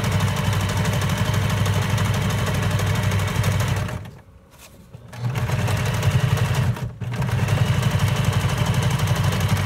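Small electric sewing machine stitching through layered paper pages and a ribbon tab, running steadily. It stops for about a second around four seconds in, then runs again with a brief break near seven seconds.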